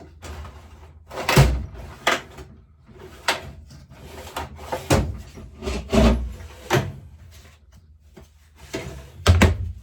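Irregular knocks and clatters of tools being rummaged through and a workshop drawer being handled while searching for sockets, about eight separate bangs with a quick pair near the end.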